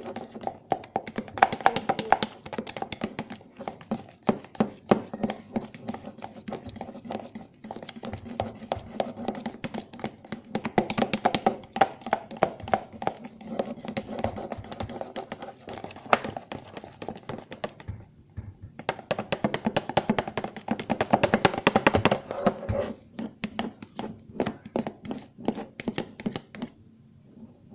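Background music under irregular clicking and tapping of a utensil stirring a thick shampoo-and-toothpaste slime mixture in a bowl, with a brief pause about two-thirds through.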